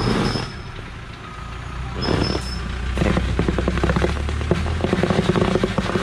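Loaded logging truck's diesel engine running under load while a winch cable hauls the stuck truck up the slope. A rapid clatter builds from about three seconds in.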